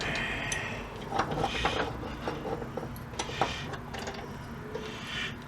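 Hand-tool work on an old body hammer's wooden handle and wedge: a few short scraping strokes and scattered light clicks and taps.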